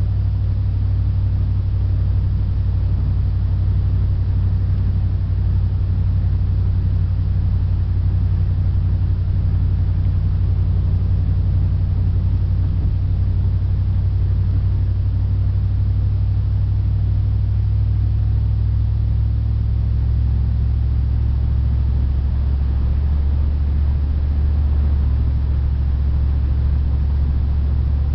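Steady low drone of a 1995 Dodge Dakota pickup heard from inside the cab while cruising, its 318 V8 running on wood gas from an onboard gasifier. The drone drops slightly in pitch about two-thirds of the way through.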